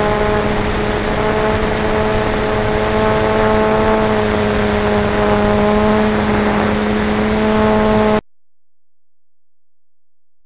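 Electric motor and propeller of an RC plane (ParkZone Stinson Reliant) whining steadily in flight, heard from on board with wind rushing over the microphone. The sound cuts off suddenly about eight seconds in.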